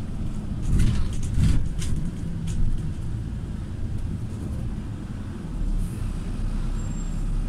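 Steady low engine and road rumble heard inside a moving double-decker bus, with a few brief rattles in the first couple of seconds and a deeper rumble building near the end.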